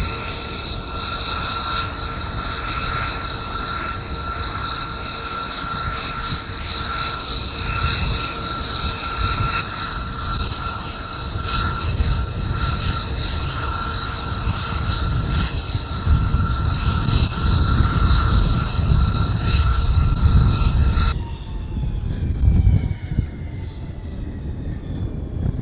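Steady jet turbine whine, several high tones held level, over a low rumble that grows louder in the second half; near the end the whine changes abruptly to a different, fainter set of tones.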